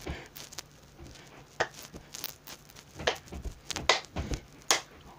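Clap push-ups on carpet: four or five sharp hand claps, roughly one every 0.8 s from about a second and a half in, with dull thumps of hands and body landing on the floor between them.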